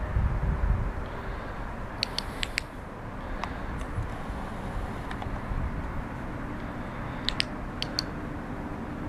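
Flashlight switches clicking in two quick clusters of several clicks, about two seconds in and again near eight seconds, as the lights are swapped, over a steady low outdoor rumble.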